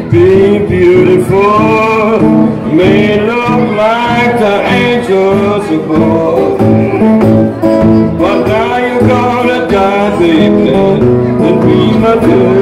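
Metal-bodied resonator guitar played solo in Delta blues style: a picked bass line under melody notes that bend and glide up and down in pitch.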